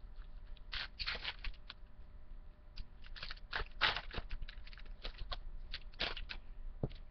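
Trading card pack wrappers being torn open and crinkled by hand, with cards rustling; irregular crackling with louder tearing bursts about a second, four seconds and six seconds in.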